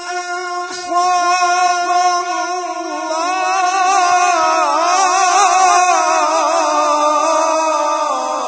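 A man's melodic Quran recitation (tilawat), amplified through a microphone: long held notes that break into rapid, ornamented turns about three seconds in, the pitch sinking near the end.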